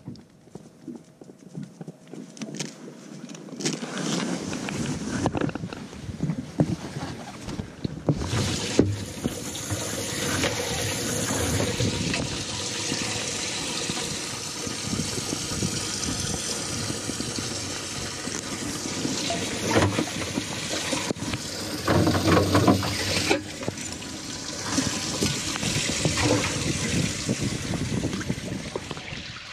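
Water rushing and splashing in a bass boat's livewell, steady for most of the time, with a louder burst of splashing about three-quarters of the way through.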